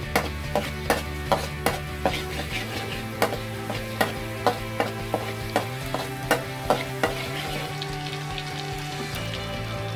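Garlic frying in oil in a metal wok with a light sizzle, while a metal spatula stirs it, clacking against the pan about three times a second until about seven seconds in. Soft background music with held chords underneath.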